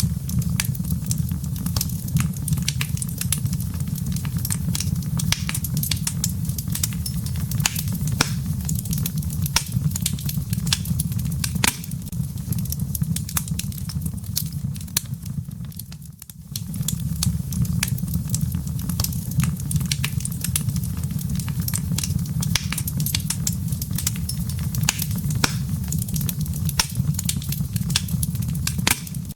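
Wood fire burning in a fireplace: a steady low rumble of flames with dense, irregular sharp crackles and pops from the burning firewood. The sound dips briefly about halfway through, then carries on.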